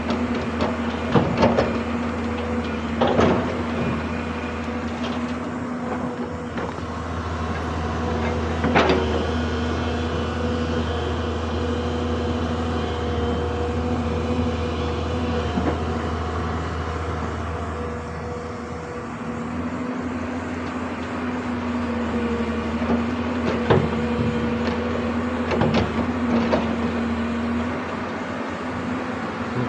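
Excavator's diesel engine running steadily with a constant hum. Several sharp clanks come through, the loudest about nine seconds in and a few more near the start and towards the end.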